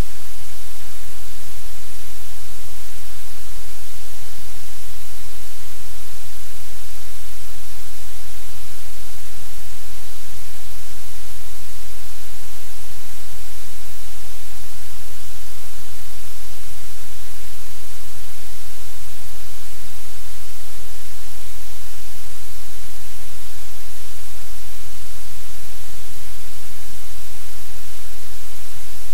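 A loud, steady hiss like static, with a constant low hum beneath it and no change or distinct event.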